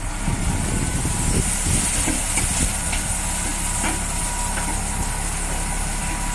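Truck washing machine's high-pressure water jets spraying with a steady hiss that comes on right at the start, over the low rumble of an idling truck engine.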